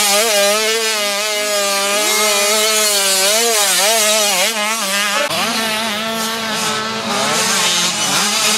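Motocross bike engine revving hard and backing off over and over, its pitch swinging up and down with the throttle. About five seconds in, a deeper engine rumble joins.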